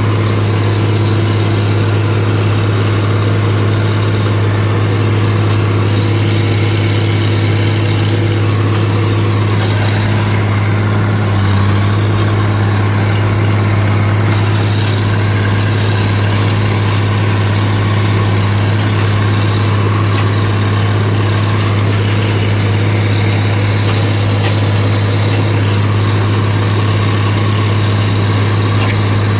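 White 2-85 tractor's diesel engine running at a steady speed under field work, a constant loud drone.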